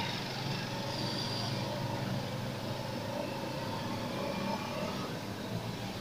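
Steady low hum over a faint, even background noise, with no distinct events.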